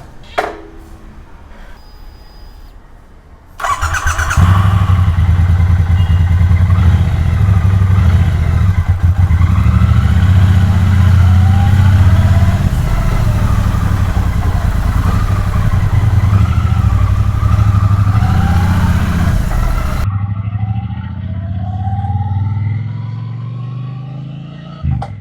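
Triumph Bonneville T120's 1200 cc parallel-twin engine starting up about four seconds in and then running at a loud, steady idle. Near the end the sound becomes quieter and duller.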